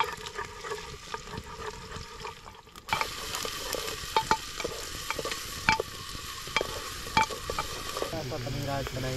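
Onions frying in oil in a pan, a steady sizzle that gets louder about three seconds in, with a spoon repeatedly clicking and scraping against the pan as they are stirred.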